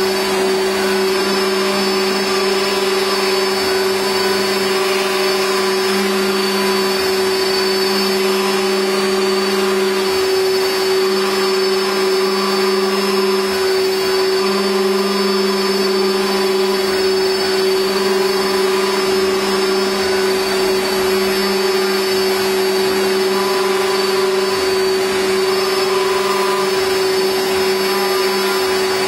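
CNC router spindle running steadily while its cutter mills slots into a plywood die board. It makes a continuous machine whine and hum with a band of cutting noise, and the lower hum dips briefly a couple of times.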